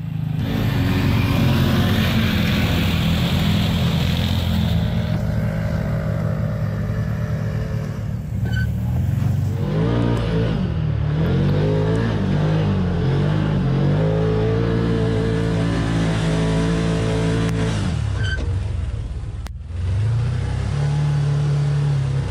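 Side-by-side UTV engine heard from inside the open cab, running under load on gravel and sand. For the first few seconds a hiss of wind and tyre noise rides over it. In the middle the revs rise and fall again and again, as the vehicle works through the sand pit below the hill, and they dip briefly near the end.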